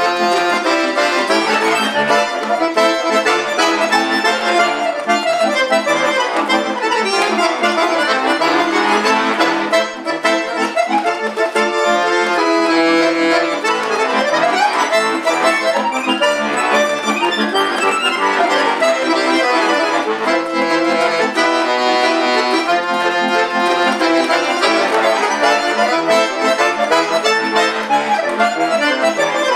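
Chromatic button accordion playing solo, a steady flow of melody over held chords without a break.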